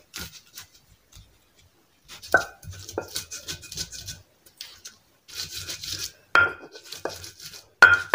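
Round stone pestle knocking and grinding on a flat stone slab, crushing garlic, galangal, ginger and turmeric into a spice paste. It comes in clusters of sharp knocks and scrapes with short pauses, after a quiet first second or two, and the loudest strikes fall near the end.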